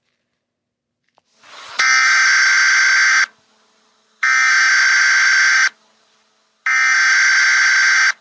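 Emergency Alert System SAME header tones: three loud, harsh buzzing data bursts of about a second and a half each, separated by short pauses. They mark the start of an emergency alert broadcast.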